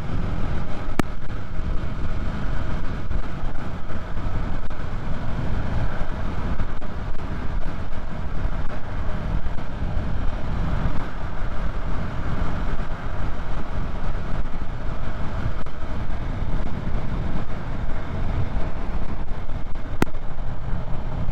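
Yamaha MT-03's parallel-twin engine running at a steady cruise, mixed with wind rushing over the microphone.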